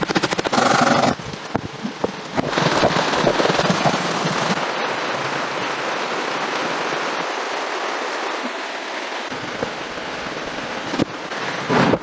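Dense, rapid crackling and rattling, with sharper clattering in the first second and again near the end, and a steady rattle through the middle.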